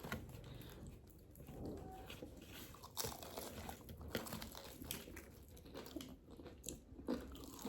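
Faint biting and chewing of crunchy KFC fried food close to the microphone, with a few short crisp crunches.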